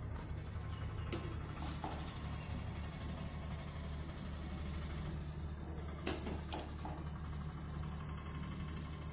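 A metal serving spoon clinking against a ceramic bowl as curry is ladled in: one clink about a second in and two close together around six seconds in, over a steady low hum and faint bird chirps.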